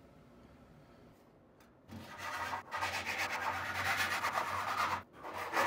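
Jeweler's saw cutting a thin brass sheet, a rasping run of saw strokes that starts about two seconds in after a quiet stretch.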